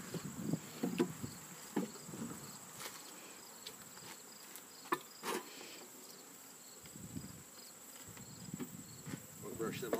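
A steady, high-pitched insect trill, like a cricket's, runs without a break, with a fainter repeated chirping beneath it. A few short knocks and rustles fall about a second in, near two seconds and near five seconds.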